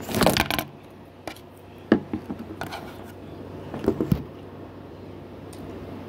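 Handling noise from a handheld phone: a loud rustle of hand against the phone, then scattered taps and knocks as it is moved about, the loudest cluster about four seconds in.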